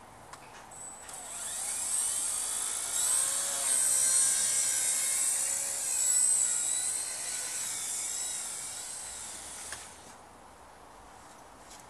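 Blade mCP X micro RC helicopter flying, its electric motor and rotor giving a high-pitched whine whose pitch rises and falls with the throttle. It builds from about a second in, swells, and cuts off sharply near the end.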